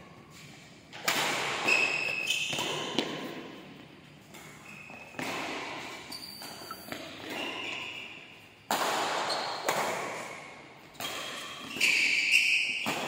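Badminton doubles rally: rackets strike the shuttlecock with sharp hits every few seconds, and sneakers give short high squeaks on the court floor between them.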